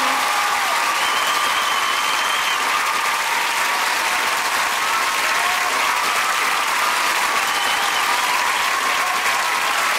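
Large audience applauding steadily, with shouts and cheers mixed in over the clapping.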